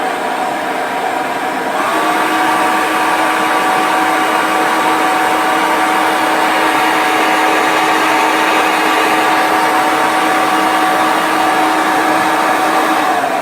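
Hair dryer blowing with a steady motor whine over the rush of air. About two seconds in it steps up to a higher speed, the whine rising in pitch and getting a little louder, then it drops back to the lower speed near the end.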